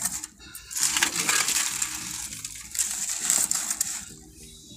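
Dry leaves and kitchen scraps rustling and crackling as a hand presses them down into a plastic compost drum, dying down near the end.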